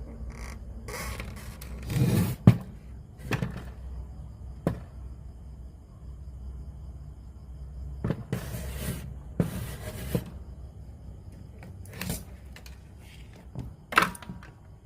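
Handling noises from work on a JVC PC-W100 radio-cassette player: irregular knocks and clicks, with the loudest knock about two and a half seconds in and two brief scrapes in the middle, over a steady low hum.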